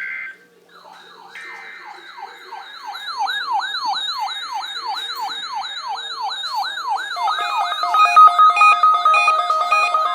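Weather radio receivers sounding their alert alarms, set off by the Required Weekly Test signal. One gives a siren of rising sweeps repeated about three times a second. About seven seconds in, a second joins with a fast pulsing beep tone.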